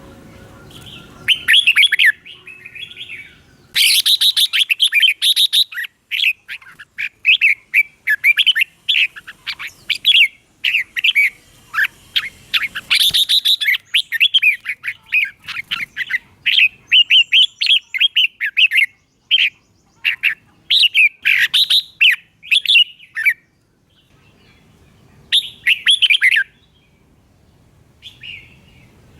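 Red-whiskered bulbul singing: runs of quick, chirping notes in rapid phrases, breaking off about three-quarters of the way through before one more short phrase.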